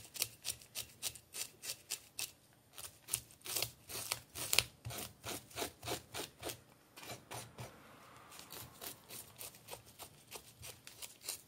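Kitchen knife scraping the scales off a threeline grunt (isaki), the blade run from tail to head in quick rasping strokes, about three to four a second, with fewer strokes for a while in the second half.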